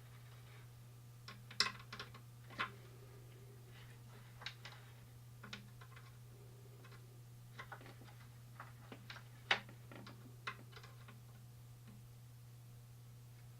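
Scattered small clicks and taps of hands fitting push-on fast-connect wire terminals onto a guitar amp speaker's tabs, with the two loudest snaps about a second and a half in and near the middle, over a steady low hum.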